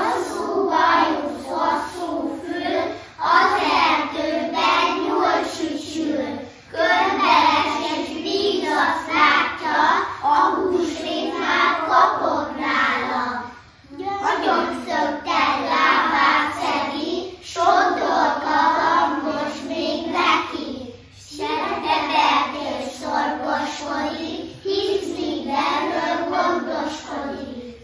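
A group of young children singing a song together in unison, in phrases of about three to four seconds with short pauses for breath between them.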